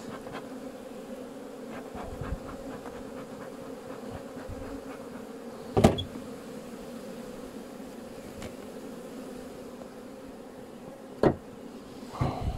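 Honey bees buzzing steadily over an open hive, a steady hum throughout. Two sharp knocks from hive equipment being handled stand out, about six seconds in and again near the end.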